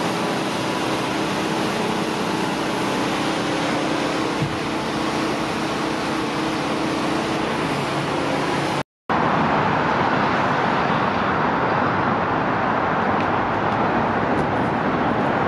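Steady roar of road traffic with a faint low hum under it. The sound cuts out for a moment about nine seconds in and comes back as a brighter, hissier roar.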